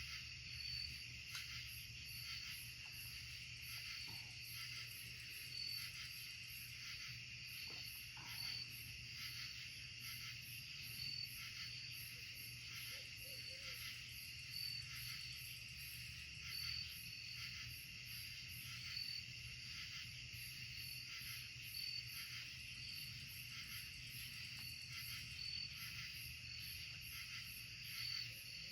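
Night insect chorus of crickets and katydids, trilling steadily, with a high chirp repeating about once a second.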